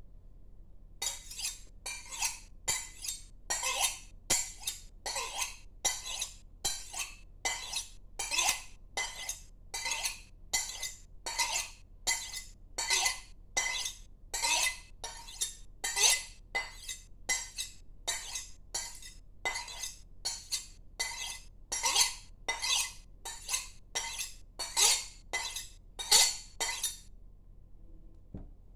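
Kitchen knife blade stroked again and again along the rim of a cup, sharpening it: a steady series of short, high, gritty scrapes, about one and a half a second, which stop a couple of seconds before the end.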